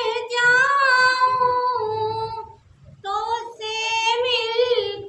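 A woman singing a line of her Hindi-Urdu love poem in a high voice, without accompaniment. She holds one long, wavering note for about two seconds, breaks off briefly, then sings a second phrase.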